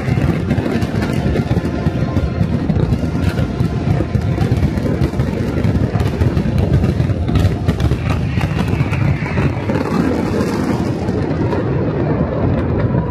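Dense fireworks barrage: rapid overlapping booms merge into a continuous rumble, with sharp cracks and crackle on top. The cracks thin out near the end as the barrage dies away.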